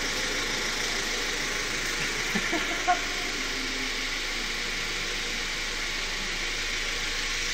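Steady background hiss of a car workshop, with a few light clicks about two to three seconds in.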